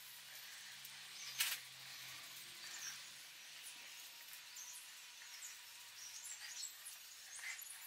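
Paintbrush working sealant onto the top of a ballast keel around the keel bolts: faint scratchy brush strokes over a steady hiss, with one sharp tick about one and a half seconds in.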